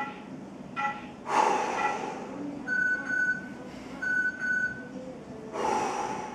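A man breathing deeply and audibly through a stretch: a long breath about a second in and another near the end. Between them are two steady high tones, each under a second long and about a second apart.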